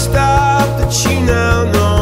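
Background music: a rock song with a steady drum beat, held bass notes and a singing voice.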